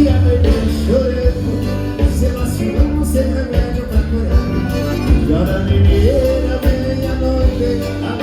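Accordion-led gaúcho dance band playing live, with a steady beat and a gliding melody line.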